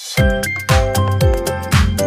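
Upbeat music: a steady kick drum and bass come in just after the start, about two beats a second, under keyboard chords.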